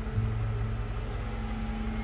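Vehicle driving slowly on a dirt road, heard at the open side window: a steady engine and road rumble, with a steady high-pitched whine above it.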